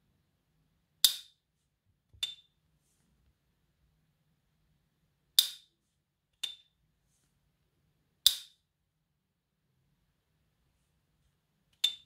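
S.T. Dupont lighter lid being flicked open and shut, giving four sharp metallic pings with a short ring, a few seconds apart, two of them followed about a second later by a softer click.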